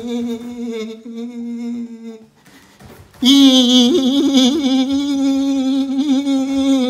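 A man humming two long, steady, nasal notes at the same low pitch. The first breaks off about two seconds in. The second starts after a short pause and wavers briefly partway through.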